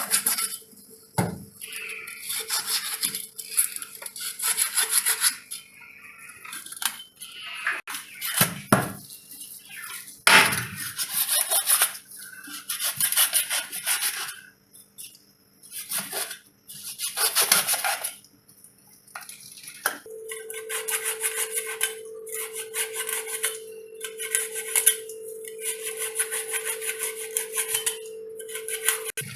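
A knife scraping over a snakehead fish in repeated rough strokes, with knocks and clinks of metal against a dish. A steady hum joins about two-thirds of the way in.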